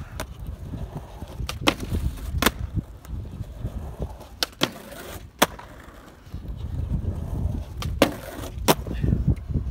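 Skateboard rolling on rough concrete with a steady low rumble, broken by about six sharp clacks of the board popping and landing.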